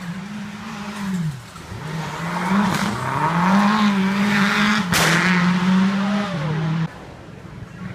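Rally car engine revving hard as it drives a stage, its pitch dropping and then climbing and holding high, with tyre noise. A sharp crack comes about five seconds in, and the sound cuts off abruptly near the end.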